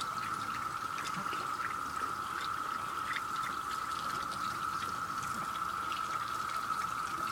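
Cicada chorus from the trees: a steady, unbroken buzzing drone with a few faint ticks over it.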